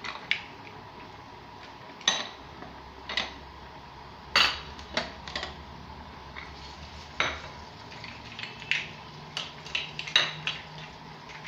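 Kitchen clatter of dishes and cutlery being handled: a dozen or so sharp clinks and knocks at irregular intervals.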